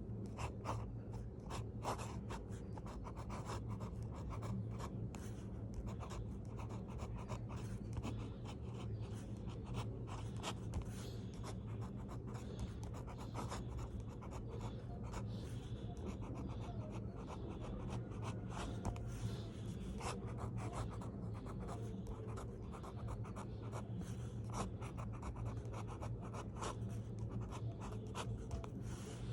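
Handwriting: a pen scratching and scraping across paper in quick irregular strokes, over a steady low background hum.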